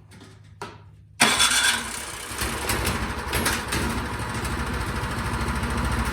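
Craftsman snowblower's small gas engine, partly choked, starting up about a second in after a short click and then running steadily with an even rapid beat. It fires and keeps running on a carburetor just cleaned of stale gas, the fault that had kept it from starting.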